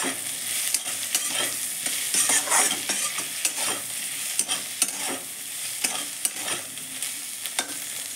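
Spatula stirring vegetables frying in a kadhai, with frequent scrapes and taps against the pan over a steady sizzle of hot oil.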